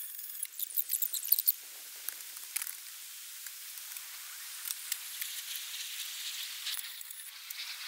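Light crackly rustling and small sharp clicks, busiest in the first second and a half, then scattered single clicks over a steady faint outdoor hiss.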